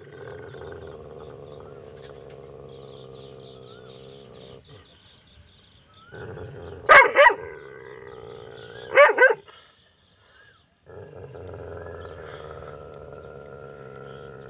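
Dog barking: two loud double barks about two seconds apart, in the middle stretch. A steady, quieter hum with a fixed pitch runs before and after them.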